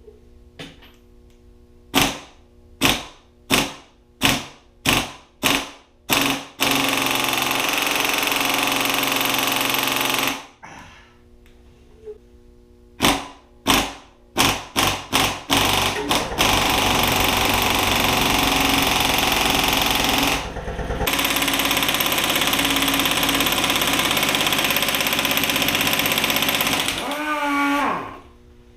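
Large air impact wrench hammering on a Toyota 1JZ's crankshaft pulley bolt. It fires in several short bursts about a second apart, then in long runs of continuous hammering, and spins down with a falling pitch near the end. The bolt does not break loose.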